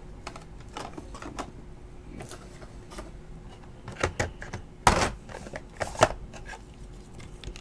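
Light clicks and taps of stiff plastic as a thick patch trading card is handled and worked into a rigid plastic top loader. The loudest knocks come about five and six seconds in.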